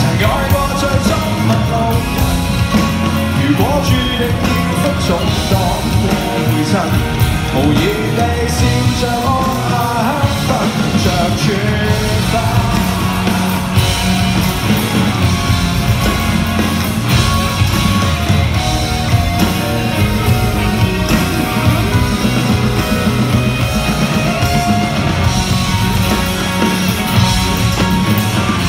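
Live rock band playing loudly through an arena PA, with electric guitars, bass and a drum kit, heard from among the audience.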